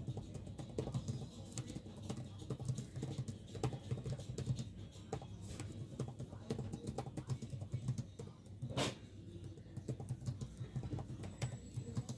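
Home background noise while working: scattered keyboard-like clicks over a low, uneven murmur, with one louder knock about nine seconds in.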